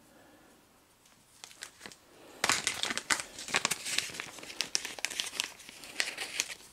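Small plastic zip-lock parts bag crinkling as it is handled: a few light clicks about a second and a half in, then continuous crinkling from about two and a half seconds in.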